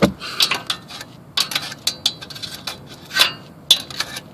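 Irregular scraping, rubbing and clinking under a car as burnt shop-towel remnants are picked and pulled off the hot exhaust manifold, with several sharp metallic knocks.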